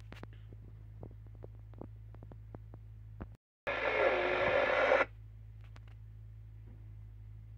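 CB radio receiver on FM, a steady low hum through the speaker with faint scattered clicks. Around four seconds in, a loud burst of an incoming transmission lasts about a second and a half as the signal meter jumps up, then the set drops back to the hum.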